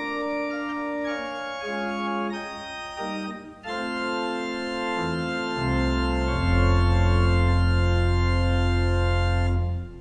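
Church organ playing sustained chords that change every second or so, then deep pedal bass comes in about halfway and a long closing chord is held until it cuts off near the end.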